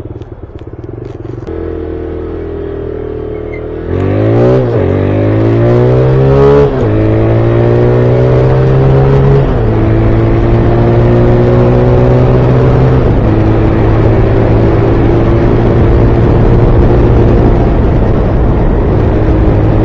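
Motorcycle engine accelerating, its pitch climbing and dropping back twice in quick upshifts about four to seven seconds in, then rising more gently through further gears and settling into a steady cruise.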